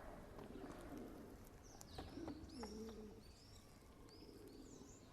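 A pigeon gives a low, falling coo about two seconds in. Small birds chirp repeatedly in short high notes over a faint background hush.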